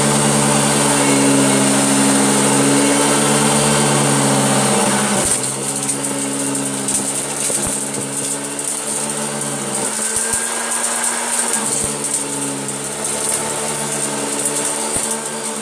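A Hoover Junior upright vacuum cleaner running steadily while it picks up dirt. Its motor hum changes about five seconds in and goes a little quieter and hissier, and there are occasional sharp clicks.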